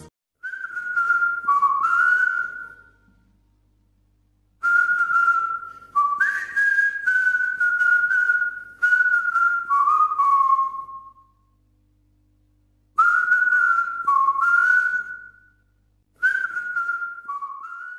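A person whistling a tune in four phrases of stepping and gliding notes, with short pauses between the phrases.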